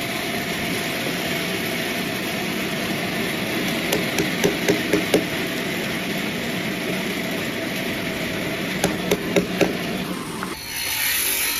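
Sawmill machinery running steadily, with two quick runs of about five sharp, hammer-like knocks on wood or metal. About ten seconds in the steady running stops and a louder rushing hiss starts.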